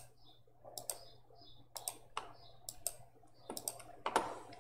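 Computer mouse clicking, a series of sharp clicks, many in quick pairs of press and release, about one or two a second, with a few louder clicks near the end.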